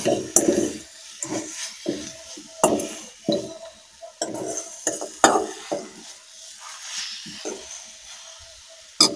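A steel spoon stirring and scraping a sautéing mixture in a metal kadai, with irregular scrapes and clinks against the pan and a sharp knock near the end.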